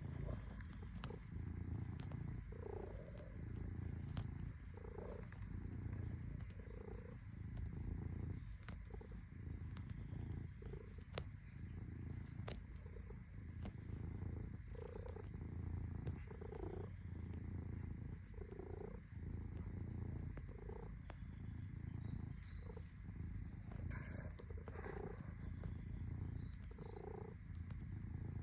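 Domestic cat purring steadily while it kneads. The purr swells in a slow rhythm about every two seconds, with a few faint ticks scattered through it.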